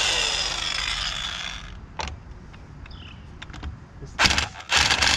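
Impact wrench loosening a pickup's wheel lug nuts in bursts: one of about two seconds at the start, then after a pause a short burst and a longer one near the end.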